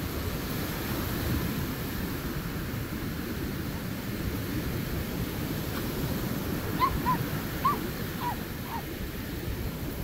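Wind buffeting the microphone over the wash of breaking surf. About seven seconds in, a quick run of five short, high calls.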